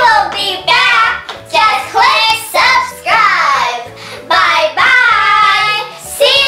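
A child singing a short sign-off song over a backing track, in phrases of about a second each with brief breaks, with a steady bass line beneath.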